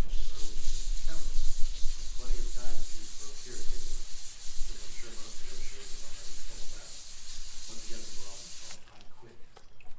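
Wet sandpaper rubbed by hand in small circular motions over a polycarbonate car headlight lens, a continuous scratchy hiss that stops about nine seconds in. This is the sanding step of headlight restoration, smoothing off the yellowed, oxidised surface.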